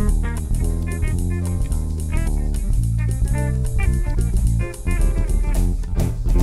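Live band playing an instrumental passage: an electric guitar picks a melodic line of single notes over bass guitar and drum kit, with a cluster of sharper drum and cymbal strikes near the end.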